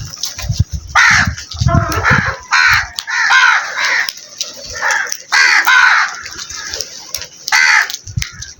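Crows cawing: a series of about eight harsh caws, some coming in quick runs, with low rumbling beneath the first few calls.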